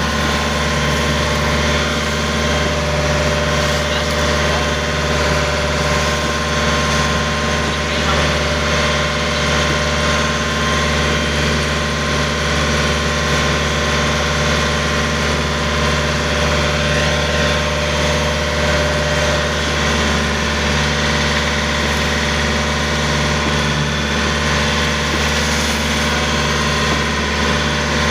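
Tour boat's engine running steadily under way, an unchanging hum with a strong low drone.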